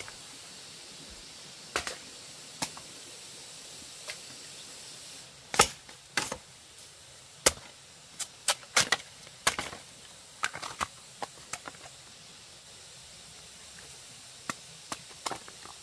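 Irregular sharp knocks and cracks over the steady rush of flowing water. The knocks come singly at first, then in a quick run in the middle, with a few more near the end.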